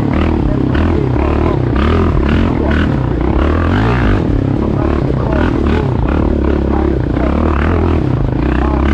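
Background music with a heavy, stepping bass line and a singing voice.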